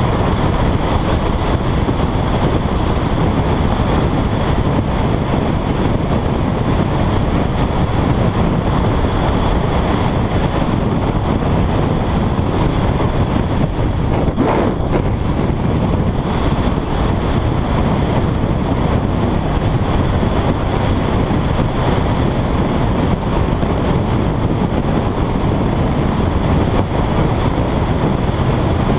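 Steady wind rushing over the camera microphone on a Can-Am Spyder RS-S three-wheeled motorcycle riding at road speed, with engine and tyre noise underneath.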